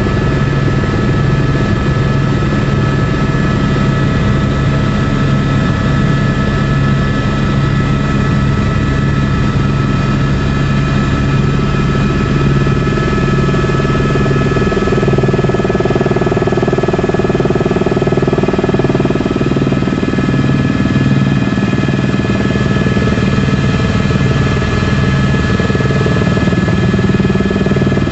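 Helicopter engine and rotor heard from inside the cabin in flight: a steady high whine over a low rotor beat, which turns choppier about halfway through.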